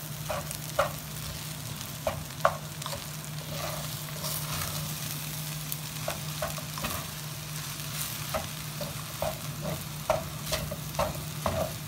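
Wooden spatula scraping and tapping against a nonstick pan in irregular strokes as rice with sweet corn is stirred and fried, over a soft sizzle. A steady low hum runs underneath.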